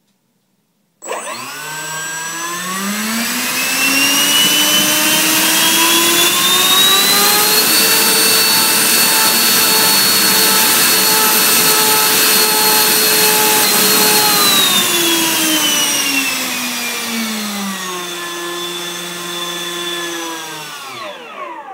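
Changesun 70 mm ten-blade electric ducted fan, driven by a 3000 kV outrunner, run up on the bench. Its whine starts about a second in and rises to full throttle at about 450 watts, holds there for several seconds, drops to a lower steady pitch, then winds down and stops near the end.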